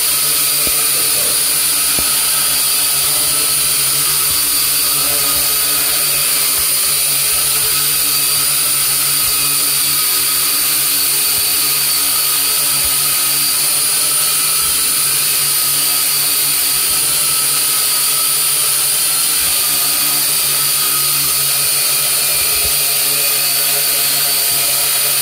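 Small toy quadcopter with propeller guards hovering: a steady, high-pitched whine from its four small electric motors and spinning propellers.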